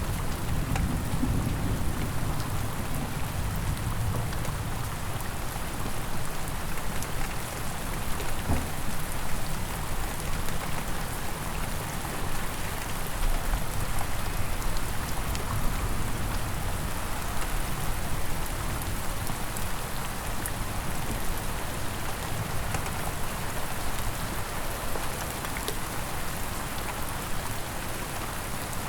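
Steady rain falling on a surface, a dense patter of drops, with a low rumble of thunder dying away in the first few seconds.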